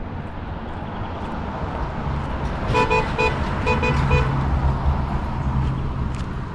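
A vehicle horn tooting six short beeps in two quick groups of three, over the low running of a vehicle engine.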